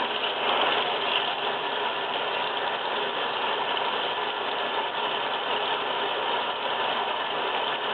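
Hands rubbing a bar of homemade cold-process soap to work up a lather, a steady wet scrubbing noise.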